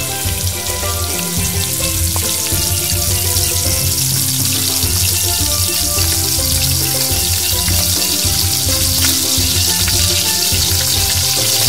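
Batter-coated leaves deep-frying in hot oil in a small metal bowl, a steady sizzle as they are pushed around with chopsticks. Background music with held notes plays underneath.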